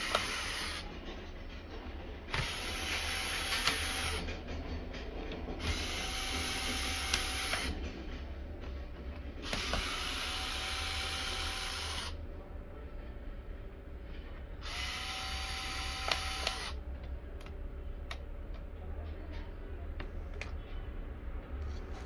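Cordless electric screwdriver running in short bursts of about two seconds each, five in all, a steady motor whine, backing screws out of a laptop's metal palmrest. A few light clicks follow near the end.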